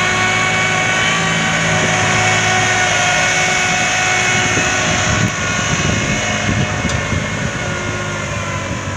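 Massey Ferguson 9500 Smart tractor's diesel engine running steadily under load as it tows a clay mixing machine. It drops a little in level and grows more uneven about five seconds in.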